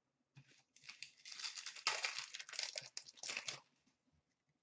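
A trading-card pack wrapper being torn open and crinkled by hand. The crackling starts about half a second in, is loudest in the middle, and stops shortly before the end.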